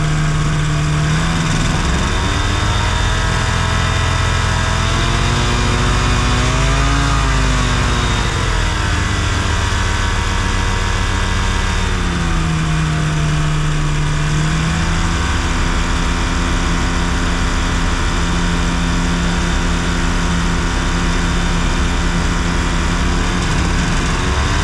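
Challenger II ultralight's engine running at power, its pitch rising and falling a few times as the throttle changes, over a steady rush of noise.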